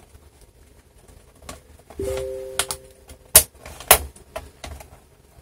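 Plastic retaining clips of a laptop's bottom cover snapping free as it is prised off: two sharp clicks about half a second apart, with small ticks before them. Just before the clicks, a steady two-note electronic tone sounds for about a second.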